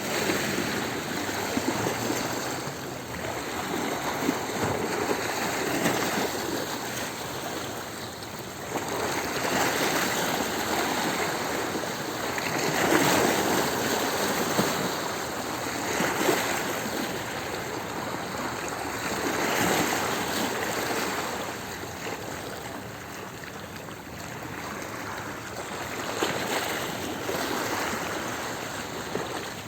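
Sea waves breaking and washing over stones at the shore: a steady rush of water that swells and falls back every few seconds.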